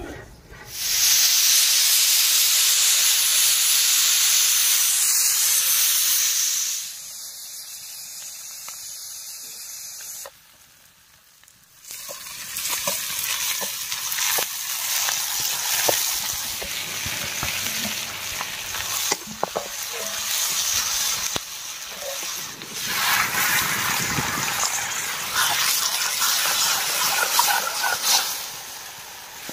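Masala frying in hot oil in a kadhai: loud sizzling starts suddenly about a second in and eases off at around seven seconds. After a short lull, steady frying sizzle returns with the scrapes and clicks of stirring.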